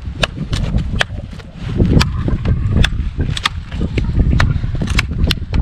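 Tip of a Cold Steel SR1 tanto-point folding knife repeatedly stabbing into the end grain of a wood round: a run of sharp, irregular knocks about three a second, over a low rumble.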